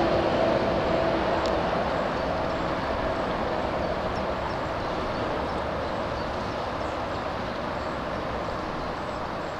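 Steady rushing noise of a motor vehicle, with a low engine hum that fades out in the first few seconds as it moves away and the level slowly drops.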